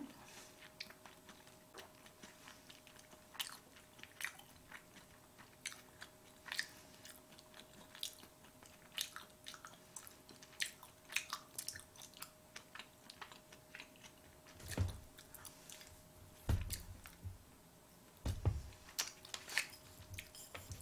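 Faint close-miked chewing of sushi: many small wet mouth clicks and smacks, with three dull low thumps in the second half.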